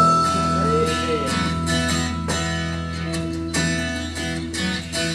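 Instrumental introduction to a gospel song played over a sound system: strummed guitar over steady held chords and a low bass line.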